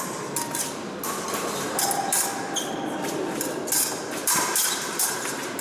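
Two épée fencers in a bout: shoes squeaking and tapping on the piste, with many sharp, high-pitched clicks and a few brief squeaks over hall noise.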